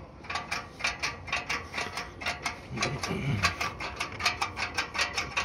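Quick irregular clicking and rattling of a small snowblower engine's governor and throttle linkage as it is worked back and forth by hand, several clicks a second. The mechanic puts the linkage's stiffness down to the governor parts being dried out for lack of oil, which leaves the throttle stuck open at high idle.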